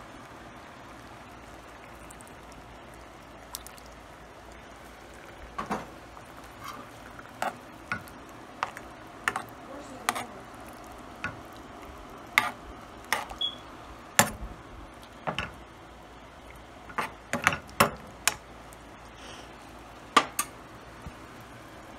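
A spoon stirring shrimp in a creamy coconut-milk sauce in a skillet, clinking and knocking against the pan in sharp, irregular strikes. The strikes start a few seconds in and are thickest in the later half, over a steady low hiss.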